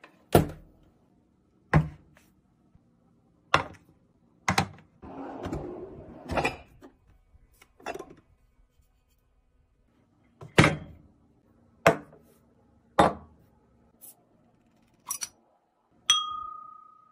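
A series of separate sharp knocks and clinks, about one every second or two, as objects are handled and set down, with a brief rustle a few seconds in. Near the end a thin-walled beer glass is flicked and rings with a clear tone that slowly dies away.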